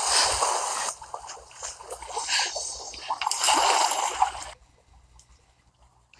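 Water splashing and sloshing as a swimmer pulls herself back aboard a canoe. It stops abruptly about four and a half seconds in.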